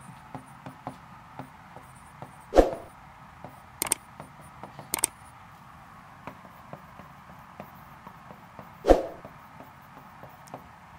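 Light taps and clicks of a stylus writing on a large touchscreen whiteboard, with a few louder knocks, the loudest about a quarter of the way in and again near the end.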